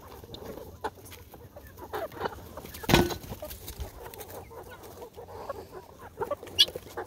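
Chickens clucking as they forage, in short scattered calls, with one louder sudden sound about three seconds in.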